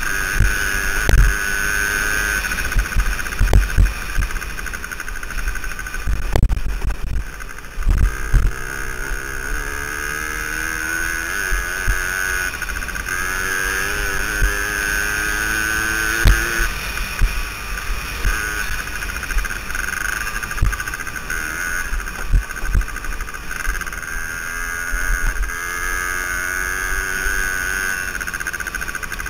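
Suzuki DS80's small two-stroke single-cylinder engine running under way on a dirt bike, its revs rising and falling with the throttle. Wind buffets the helmet-mounted microphone, with low thumps from the ride.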